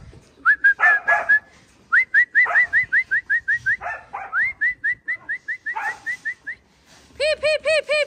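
Rapid runs of short rising whistles, about four or five a second, a handler's whistled commands to a working Kelpie moving sheep, with a few short barks mixed in. Near the end a fast run of high repeated calls starts.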